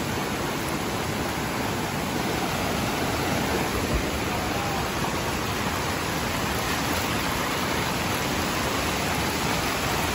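Heavy rain pouring down in a steady, even wash of noise, mixed with running floodwater.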